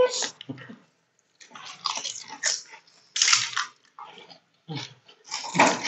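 Crisp pani puri shells crunching as they are cracked open, bitten and chewed wet with their spiced water, in irregular bursts.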